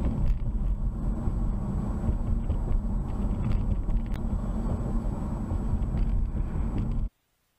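Steady low road-and-engine rumble of a car driving at highway speed, picked up by a dashcam, with a few faint ticks. It cuts off suddenly near the end.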